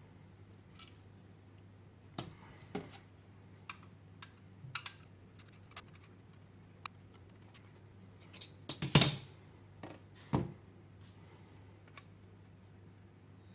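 Scattered light clicks and taps of small screws and 3D-printed plastic parts being handled during assembly, with a louder clatter about nine seconds in.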